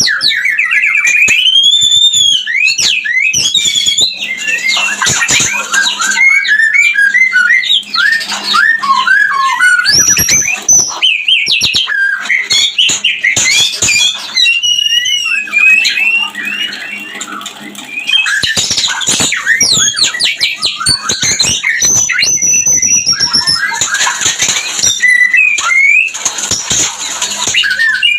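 White-rumped shama (murai batu) in breeding mood calling and singing: a continuous, loud run of varied whistles, quick chattering notes and sharp clicks, with a short lull about two-thirds of the way through.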